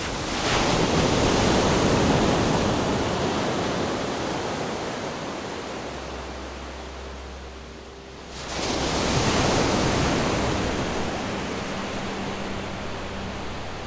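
Two swells of rushing, surf-like noise in an experimental soundtrack: the first rises quickly and fades over several seconds, the second starts abruptly about two-thirds of the way in and fades again, with a low hum entering underneath shortly before it.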